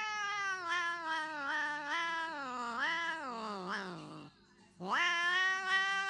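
Tabby cat yowling in two long drawn-out calls, its pitch wavering up and down. The first slides downward and breaks off about four seconds in; the second starts with a rising sweep about half a second later.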